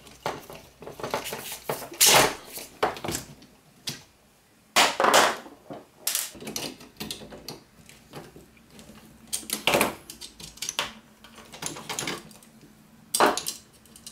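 Irregular clicks, knocks and clatters of hard 3D-printed plastic parts and metal hand tools being handled while robot leg modules are taken apart on a workbench, with a few louder knocks among them.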